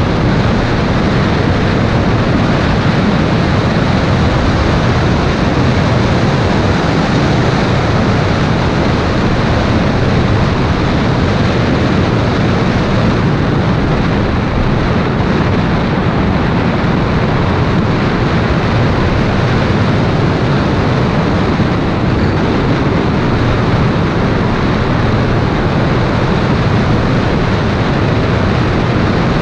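Steady wind rush and tyre road noise picked up by a camera on the front bonnet of a moving Toyota MR2 mk2. It is an even, loud rush with no clear engine note standing out.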